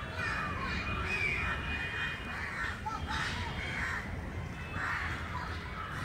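Crows cawing, with harsh calls repeated several times.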